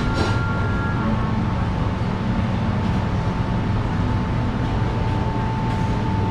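Steady indoor room noise of a busy buffet hall: a low, even hum with a thin steady whine over it.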